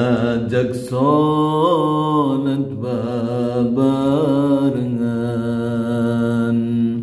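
A man's voice singing a Sundanese pupujian (devotional chant) without accompaniment, in slow phrases of long held notes with wavering ornaments.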